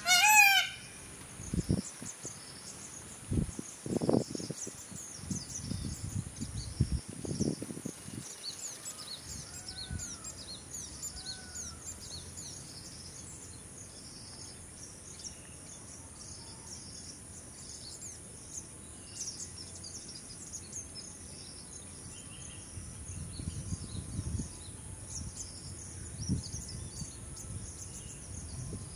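Outdoor ambience of many small birds chirping and a steady high-pitched insect drone, with irregular low rumbling near the start and again near the end.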